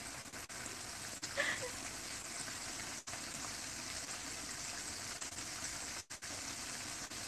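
Breaded chicken frying in hot oil in a frying pan, a steady sizzle.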